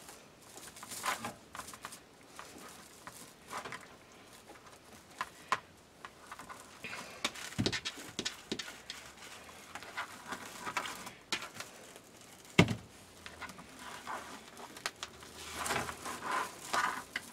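Plastic deco mesh rustling and crinkling as it is pulled and pushed into puffed bubbles by hand, with scattered small clicks. Two dull knocks stand out, the louder about twelve seconds in.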